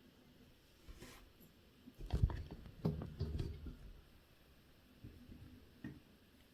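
Faint clicks and light knocks of small tools and watch parts being handled on a workbench, with a busy cluster of taps in the middle and one sharper click near the end.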